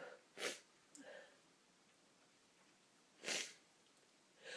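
A person sniffing twice between sneezes, short quick breaths through a tickling nose, about half a second in and again about three seconds later.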